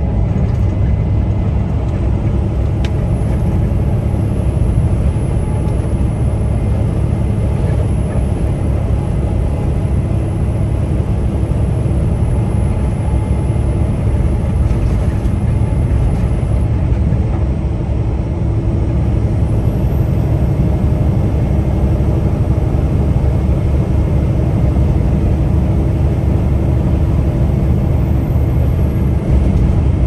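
Peterbilt 579 semi-truck driving: a steady low engine and road rumble, heard from inside the cab.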